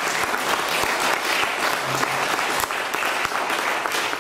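Audience applauding: many people clapping, a dense steady patter of hand claps.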